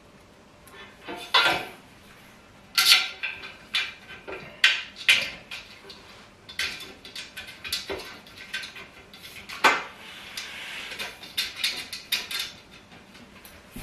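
Metal hardware and tools handled during furniture assembly: a dozen or more irregular clinks, clatters and knocks, some with a short metallic ring.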